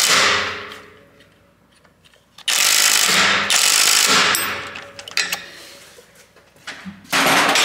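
Cordless impact wrench hammering in bursts as it tightens a rear suspension arm bolt while the nut is held with a wrench. One burst fades out just after the start, a longer one of nearly two seconds comes about two and a half seconds in, and a short one comes near the end.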